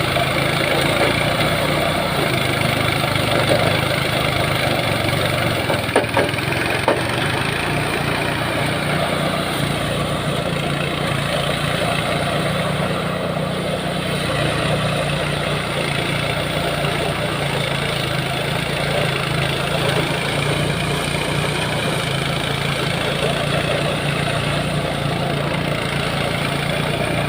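Engine-driven rice thresher running steadily, with a couple of short knocks about six seconds in.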